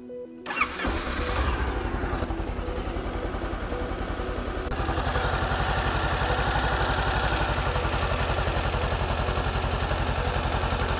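Honda CB500X's 471 cc parallel-twin engine started on the electric starter about half a second in: it cranks briefly, catches, and settles into a steady idle. This is the first start after an oil change, with fresh oil being pumped through the engine.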